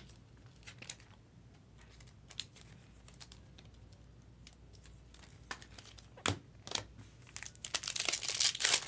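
Scattered light clicks of trading cards being handled, then, from about seven seconds in, the crinkling and tearing of a foil trading-card pack wrapper being ripped open.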